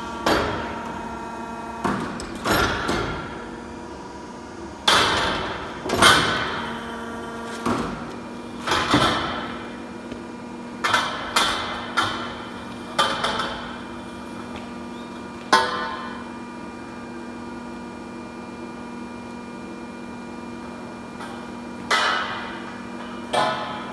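Pipe-bending machine at work: a string of sharp clanks, each trailing off over about a second, as it clamps and bends tube, over a steady machine hum. The clanks come at irregular intervals, with a quiet stretch of several seconds before two more near the end.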